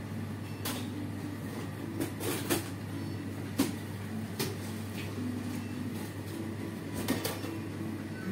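Shop interior ambience: a steady low hum under scattered sharp clicks and knocks, with the loudest cluster a few seconds in and another near the end.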